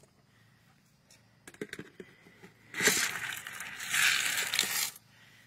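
A few light clicks, then about two seconds of crinkling, rustling noise, like material or wrapping being handled.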